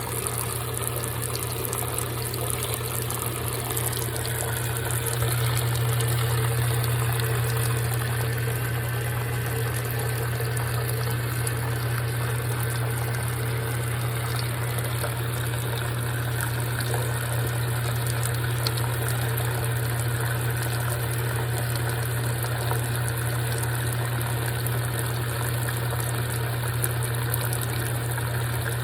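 GE top-load washing machine filling: hot water pouring steadily into the tub, over a constant low hum.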